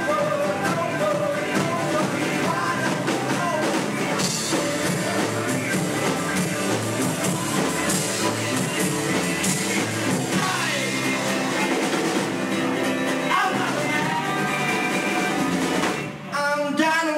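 Rock band playing live: drum kit, bass guitar and guitars, with a male voice singing. The sound drops briefly about sixteen seconds in, then the band comes back in at full volume.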